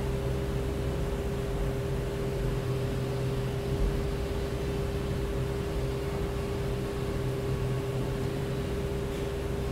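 Steady machine hum with one constant mid-pitched tone over a low drone and a light hiss.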